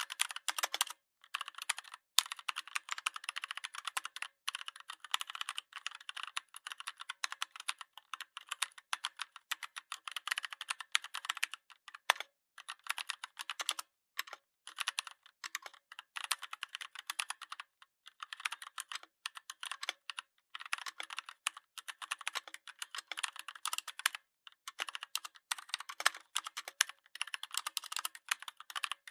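Dense, rapid clicking and tapping in runs, broken by short pauses.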